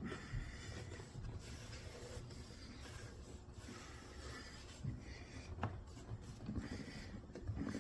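Leather being pulled and rubbed down over a taped vise jaw: faint rubbing and scraping, with a few light knocks in the second half.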